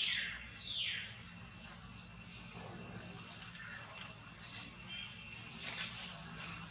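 Baby monkey crying: two high squeals that fall in pitch in the first second, then fainter calls. A little past three seconds in comes a louder, high-pitched buzz that lasts under a second.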